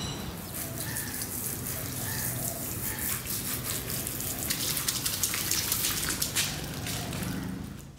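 Water jetting from a garden hose spray nozzle and splashing onto a wet tiled floor, a steady hiss with scattered splashes. It cuts off near the end.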